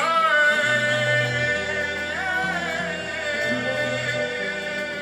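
Live band playing Congolese rumba with a bass line, and a voice holding one long sung note that starts at once and bends about two seconds in.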